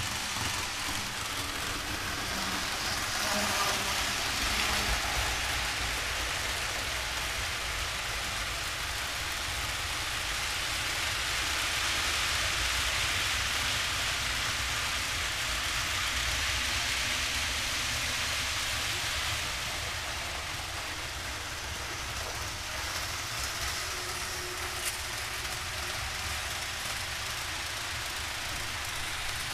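Steady rolling rumble and hiss of model trains running on the layout track, swelling for several seconds in the middle.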